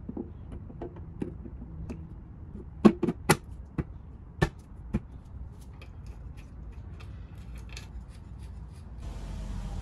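Light metallic clicks and taps as an oil pan is set onto the engine block's gasket and its bolts are fitted by hand. A few sharper knocks come about three to five seconds in.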